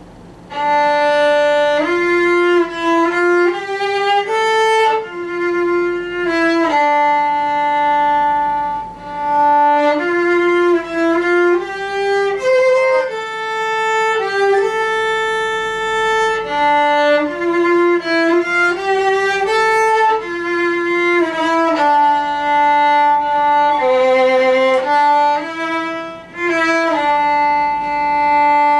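Solo violin playing a slow melody one note at a time, with some notes held for a second or two.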